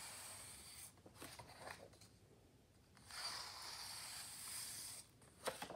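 Picture-book page being turned with a pencil page turner tipped with hot glue: faint paper sliding and rustling in two stretches, with a few light taps between and a sharper tap near the end.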